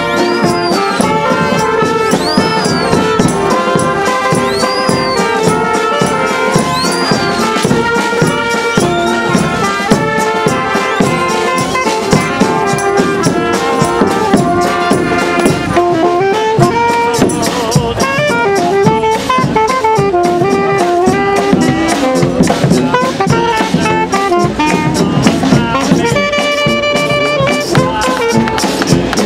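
Live street brass band playing an upbeat march tune: saxophones, trumpets and a sousaphone over a steady bass drum beat and a rattling metal hand percussion.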